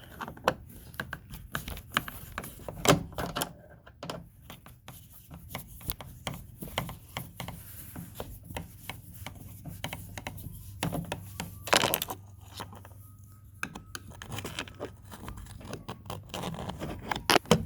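Hand screwdriver backing out a small screw from a plastic car door panel, with irregular small clicks, scrapes and knocks of the tool and panel being handled; the loudest knocks come about three seconds in and again about twelve seconds in.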